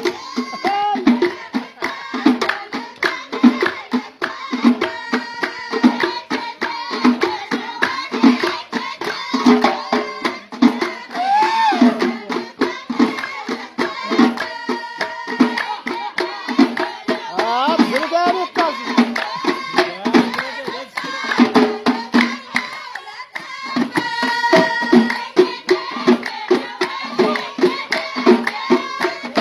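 Ahwach, Amazigh folk music: frame drums and hand-clapping keep a steady beat under group singing.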